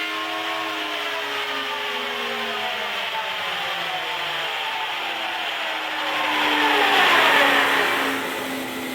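Thickness planer and dust collector spinning down after being switched off: a whirring motor hum whose pitch falls steadily, with a louder rushing swell about six to eight seconds in as the machines coast to a stop.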